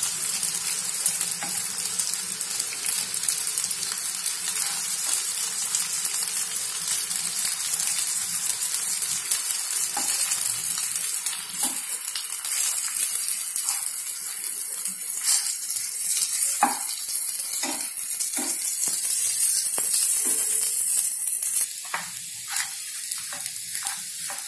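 Chapati cones sizzling as they shallow-fry in oil in a non-stick pan, with a spatula clicking and scraping against the pan as the cones are turned. Near the end the sizzle suddenly gets quieter.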